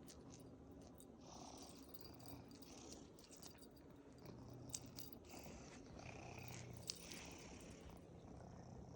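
Domestic cat purring softly, its purr swelling and fading in breath-long stretches, with two sharp clicks in the second half.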